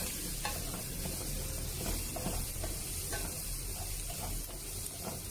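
Chopped vegetables sautéing in oil in a non-stick wok, sizzling steadily while a spatula stirs them, with a few faint scrapes of the spatula against the pan.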